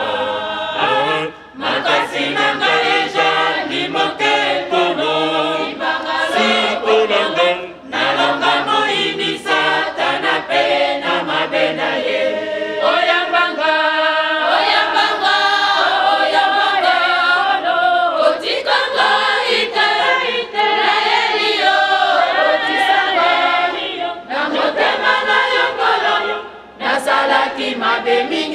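Church choir of men's and women's voices singing together, with a few short breaks between phrases.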